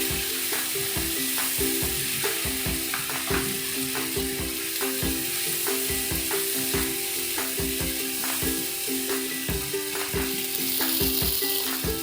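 Onion, tomato and spice masala sizzling in oil in a kadai while it is stirred and fried down, with repeated knocks as it is worked.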